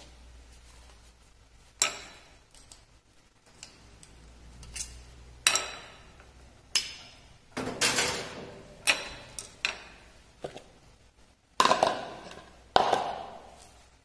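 Metal clinks and knocks of an espresso machine's portafilter and its steel filter basket being handled against the stainless drip-tray grate: about ten sharp, ringing strikes, the loudest near the end.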